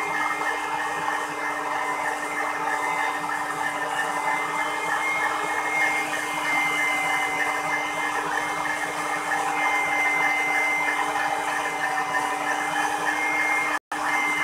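Electric stand mixer running steadily at speed, its beater whipping eggs, sugar and oil into batter in a stainless steel bowl: a constant motor whir with a steady whine. The sound cuts out for an instant near the end.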